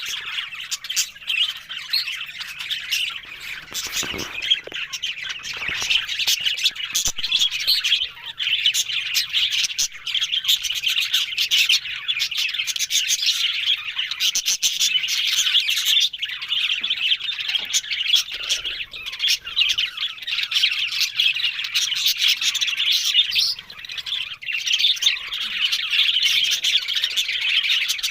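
Several budgerigars chattering without a break, a dense mix of chirps and squawks, with a few short knocks about four to six seconds in.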